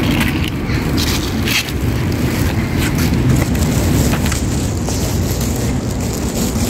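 Footsteps crunching irregularly over dry ground, over a steady low rumble.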